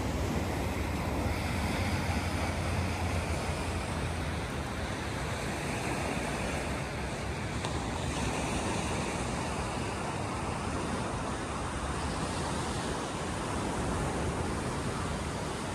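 Sea waves breaking and washing up the shore, a steady rush of surf, with a low wind rumble on the microphone for the first second or so.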